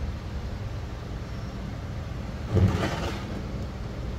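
Steady low background rumble, with one short, louder burst of noise about two and a half seconds in.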